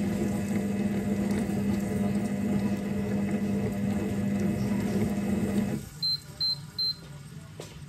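MasterPro Cracco kitchen robot (a Thermomix-style cooker) running a heated cooking step with a steady motor hum, which cuts off about six seconds in as its timer runs out. Three short high beeps follow, signalling the end of the step.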